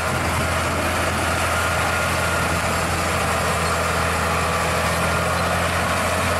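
Heavy Scania road-train truck's diesel engine running steadily as it pulls two loaded side-tipper trailers: an even, low drone with a wash of road and engine noise that does not change.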